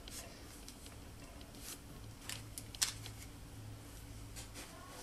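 Scissors picked up and handled against a paper specimen envelope: scattered faint clicks and paper rustles, with the sharpest click a little under three seconds in.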